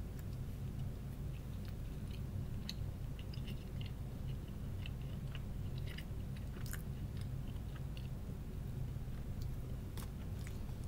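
A person chewing and biting food close to the microphone, with scattered small crisp clicks and crunches, over a steady low hum.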